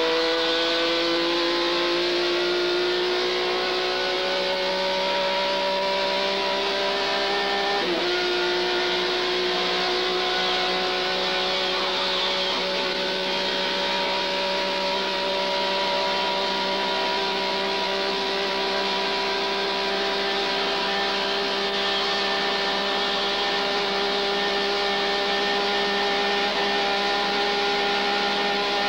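Car engine pulling in gear, its pitch climbing slowly. It drops sharply with an upshift about eight seconds in, then climbs slowly again. Steady road and wind noise runs underneath.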